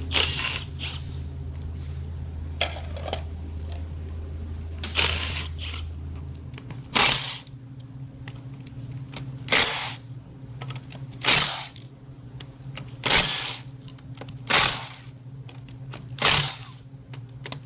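Sharp metallic clinks of hand tools and steel parts on the engine, about one every one and a half to two seconds in the second half, as the lower girdle of a 6.4 L Power Stroke diesel is being unbolted. A low steady hum stops about six seconds in.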